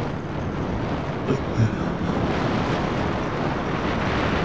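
Motorcycle under way: the engine running with a steady rush of riding wind, getting slightly louder about halfway through.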